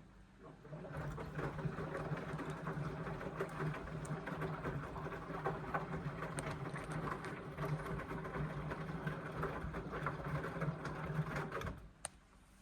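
Indesit washing machine's drum turning one way in a wash tumble: the motor hums steadily with frequent small knocks from the load, starting about a second in and stopping suddenly near the end, followed by a single click.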